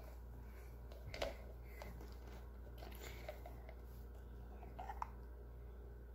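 Faint clicks and taps of a clear plastic cup and its lid being handled, a few scattered over several seconds, the sharpest about a second in, over a steady low hum.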